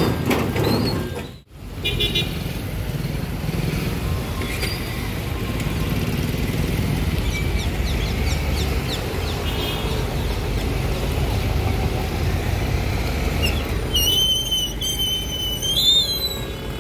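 Road traffic waiting at a closed railway level crossing: a steady mix of motorcycle and scooter engines idling and passing vehicles, with occasional horn toots. A high, wavering tone sounds for about two seconds near the end.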